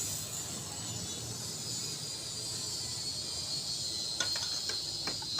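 Hand tools working on a JCB excavator engine during its teardown: a steady hiss, then a few sharp metallic clicks about four seconds in.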